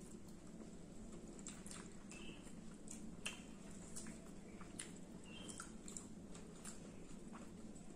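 Two people eating with their fingers: soft chewing and wet mouth sounds with scattered small clicks, over a low steady background hum.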